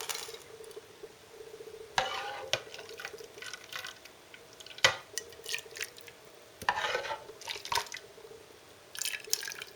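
A utensil stirring and lifting thick egg-and-lemon soup in a dish, with light liquid sounds and a few scattered clinks and scrapes of metal against the dish.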